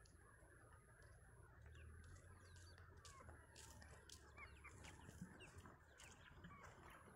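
Near-silent farmyard ambience: faint chicken clucks and small bird chirps.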